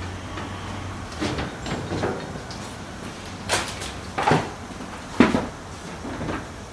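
A run of irregular knocks and clunks as loose metal motorcycle parts from the rear wheel and axle are handled and set down, the three loudest a little past halfway.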